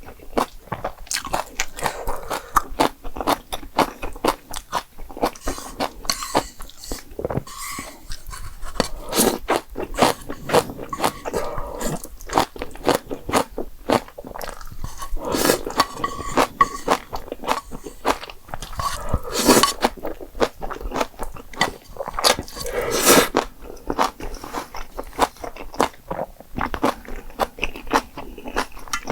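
Close-miked eating: steady wet chewing and crunching of food, with a few louder bites.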